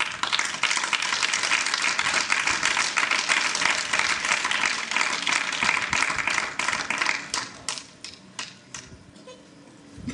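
Small audience applauding: dense clapping that thins out after about seven seconds to a few scattered claps, dying away near the end.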